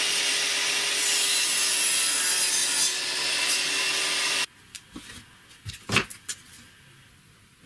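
Benchtop table saw running with a steady motor hum and its blade cutting through a wooden board, the cut harshest from about one to three seconds in. The saw sound stops abruptly partway through, followed by a few sharp wooden knocks as the cut wooden square is set down on a wooden workbench.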